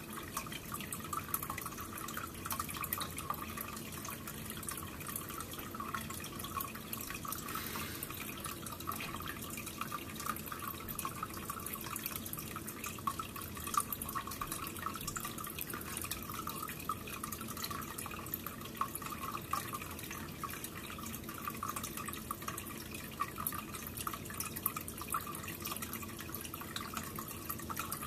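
Aquarium filter circulating water: a steady trickle and splash of falling water with a constant patter of small drips and bubbles.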